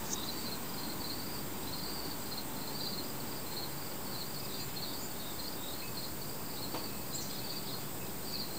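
Insects chirping outdoors in a continuous pulsing trill over a steady background hiss, with a couple of faint clicks.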